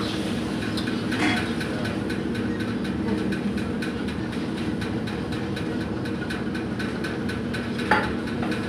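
Steady hum and roar of commercial kitchen equipment, with faint light clicks of metal spatulas tossing rice in a wok.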